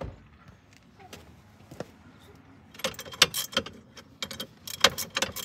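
Metal hand tools and a small nut and bolt clinking as a jet ski's nozzle linkage bolt is undone: a few faint clicks at first, then from about halfway on a busy run of sharp, irregular metallic clicks.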